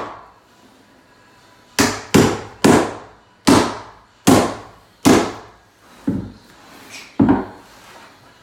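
Hammer driving the nails of wooden carpet tack strip into an OSB subfloor: a string of about eight sharp blows starting about two seconds in, spaced roughly half a second to a second apart, a couple of the later ones softer.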